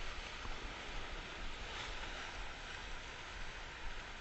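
Sea waves washing and breaking over shoreline rocks, a steady hiss of surf, with wind buffeting the microphone as a fluttering low rumble.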